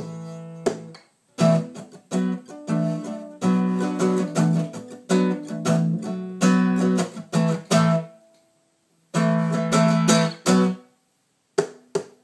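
Acoustic guitar strummed in chords, with brief pauses between phrases.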